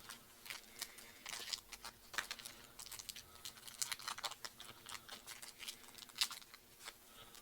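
Irregular small crackles and clicks of a chocolate bar's wrapper being handled and opened.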